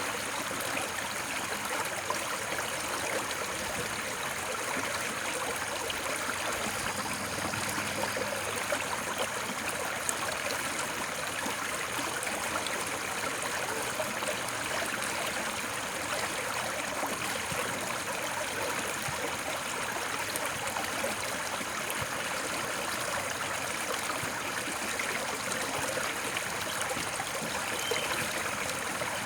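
Steady, unchanging rush of running water, an even hiss with no breaks or distinct events.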